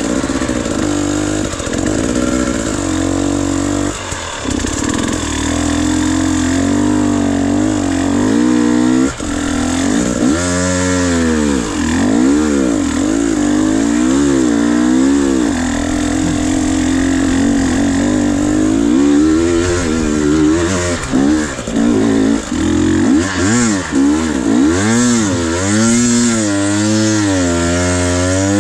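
Dirt bike engine working a tight trail. Its pitch holds steady for stretches, then rises and falls again and again as the throttle is opened and closed, with quick repeated revs over the last few seconds.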